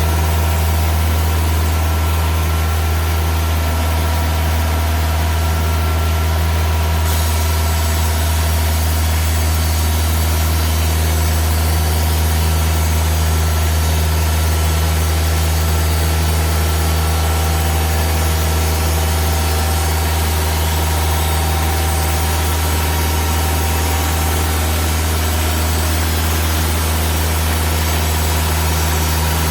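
Timberking 2000 portable band sawmill running steadily under power while sawing a pine log into rafter boards: a constant engine drone with the hiss of the blade. The high hiss gets louder suddenly about seven seconds in.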